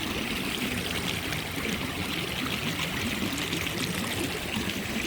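Water of a small waterfall stream rushing steadily over rock and into pools.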